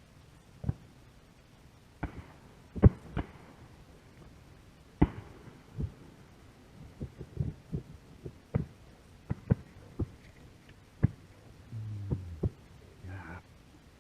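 Irregular dull knocks and thumps, about twenty of them and some in quick pairs, from a head-mounted GoPro's protective case being jostled.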